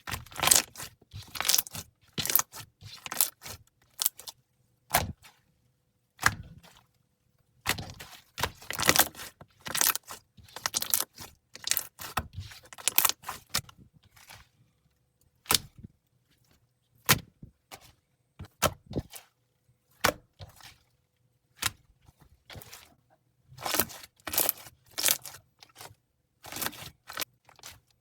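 Slime being pressed and worked by hand, crackling and popping in quick clusters of sharp clicks with short pauses between them.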